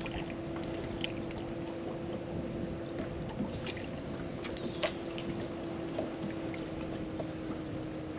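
Water lapping around a small boat, with a steady low hum and a few light clicks.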